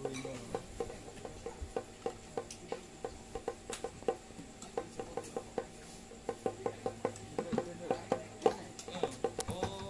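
Kendang hand drums tapped lightly and evenly by hand, about three to four strokes a second, each with a short pitched ring. A few strokes bend in pitch about eight seconds in.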